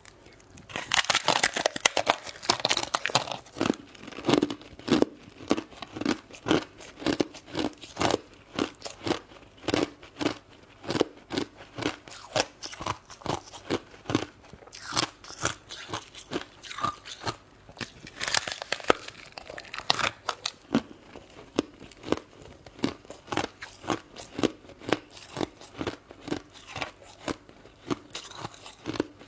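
Close-miked chewing of shaved ice: a steady run of crunches, about two a second, with denser bouts of crackling bites near the start and about two-thirds of the way through.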